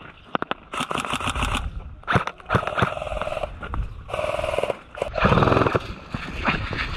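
Footsteps of a player running on sandy dirt, an uneven series of thuds with equipment rattling along.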